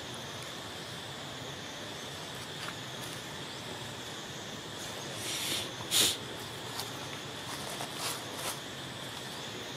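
Forest ambience with a steady high-pitched insect drone. About six seconds in comes a short sharp hiss, the loudest sound, with a few faint clicks scattered through.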